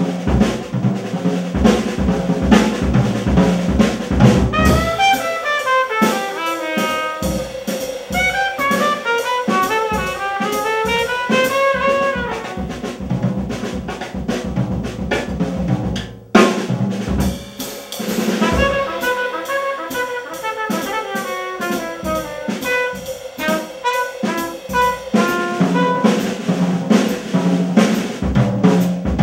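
Live small-group jazz: a trumpet plays fast runs of notes over piano, upright bass and a drum kit keeping time.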